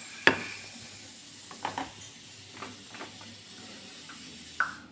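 Kitchenware clinking and knocking while spice powder is spooned over prawns in a plastic bowl: one sharp clink just after the start, then several lighter knocks, over a steady faint hiss.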